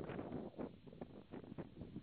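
Wind buffeting the camera's microphone in irregular gusts.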